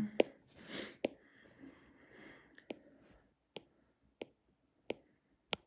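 Computer mouse clicking: about seven single sharp clicks at uneven intervals, roughly one a second.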